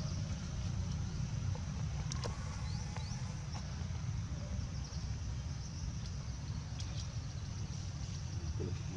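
Outdoor background noise: a steady low rumble, with a thin high buzz of insects above it and a few faint clicks.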